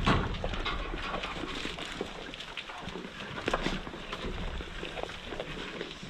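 Goats feeding at a wooden trough, crunching grain, with many scattered small clicks and knocks as they jostle against the boards and shuffle their hooves.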